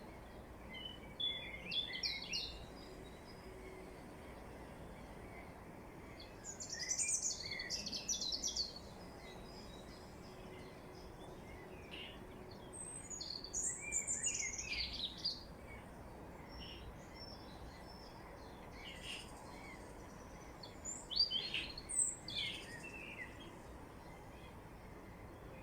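Songbirds singing in short, high-pitched, twittering phrases, four bouts a few seconds apart, over a steady low background hiss.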